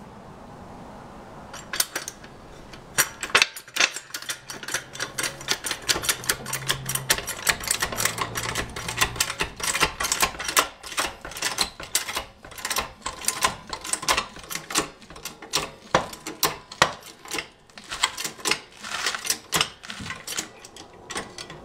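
Hydraulic floor jack being pumped to lift a car: quick, irregular metallic clicking and clanking, several clicks a second, starting about a second and a half in.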